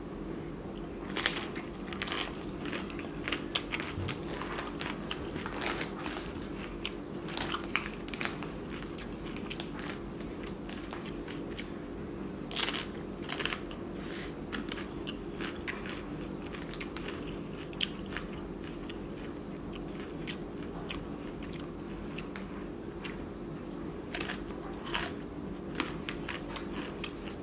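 Close-up crunching and chewing of crisp corn tostadas topped with crab-and-shrimp ceviche: many irregular crisp crunches as the pieces are bitten and chewed. A steady low hum runs underneath.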